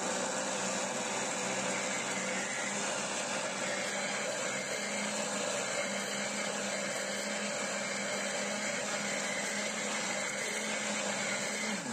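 Electric blender running steadily, blending ripe bananas, water and cocoa powder into a liquid mix.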